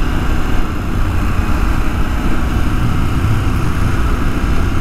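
Motorcycle engine running steadily while riding along at road speed, under a steady rush of wind and road noise.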